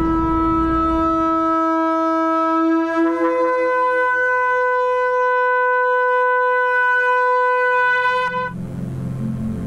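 A horn sounding one long blast: a held lower note jumps up about a fifth some three seconds in, holds, and cuts off near the end. A low rumble fades out early on, and soft music comes in as the horn stops.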